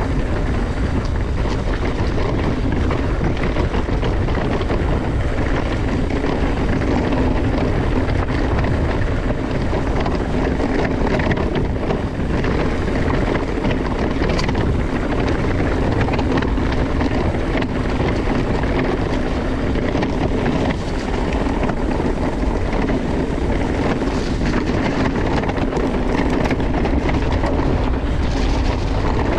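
Mountain bike riding over a rough trail: a steady rush of wind on the action camera's microphone, with tyres rumbling and the bike rattling in quick, irregular knocks.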